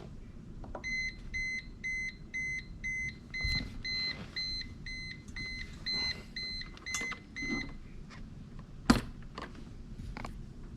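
Electronic beeper on the boat's engine or chart plotter sounding a rapid string of short, high beeps, about two a second, for roughly seven seconds and then stopping. After the beeping come a few clicks and one sharper knock.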